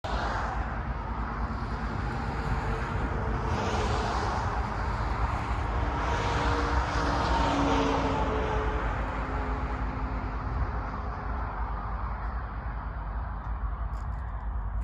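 Wind rumbling on the microphone over a steady outdoor hiss. A passing vehicle's hum swells in the middle and then fades.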